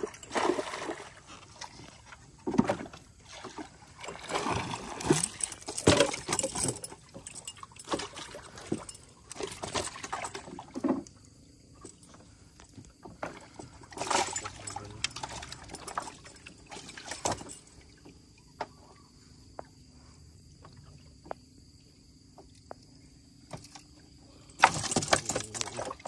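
Water splashing and sloshing around a small boat, in irregular bursts. In the quieter middle there is a faint steady hum with scattered light clicks, and near the end comes a louder burst.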